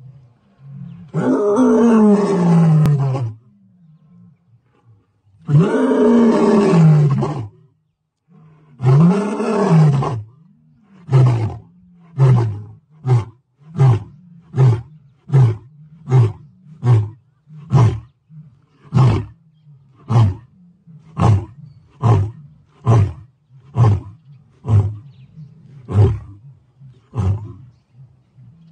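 Male lion roaring: three long, deep moaning roars, each falling in pitch, followed by a long series of short grunting roars, about three every two seconds.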